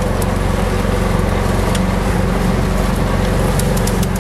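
Golf cart's swapped-in 6.5-horsepower single-cylinder small engine running steadily under way, with scattered sharp clicks.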